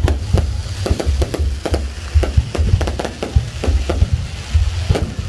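Aerial fireworks going off: a rapid, irregular string of bangs over a low rumble. From about a second in to near the end, a crackling fizz of crackle-effect shells fills the gaps between the bangs.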